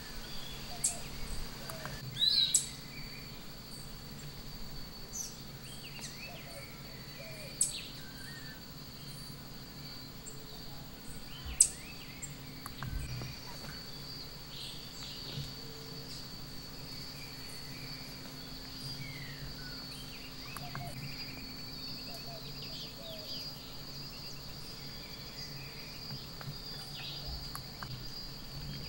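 Nature ambience: insects trilling steadily at a high pitch, with scattered short bird chirps and a few sharp clicks, the loudest about eleven and a half seconds in.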